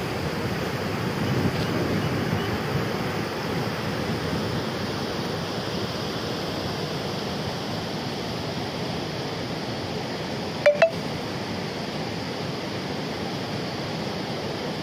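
Fast-flowing floodwater of a swollen river, rushing steadily. About two-thirds of the way through, two short clicks in quick succession.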